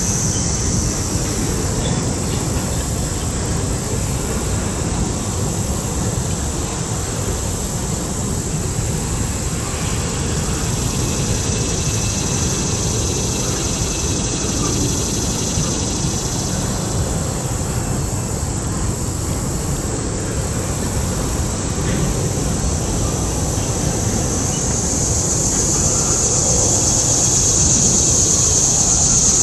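Mixed freight train's cars rolling across a stone arch bridge: a steady, continuous rumble of wheels on rail.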